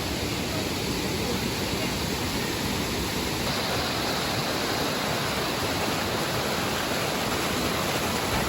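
Steady rushing water, an even noise with no breaks.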